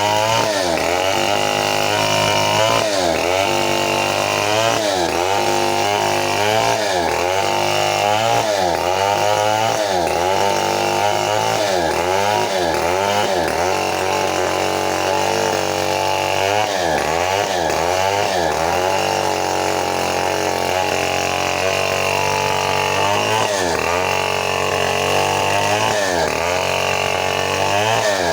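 Stihl 070 two-stroke chainsaw running at full throttle, its pitch dipping and recovering every second or two as it rips lengthwise through an old teak log.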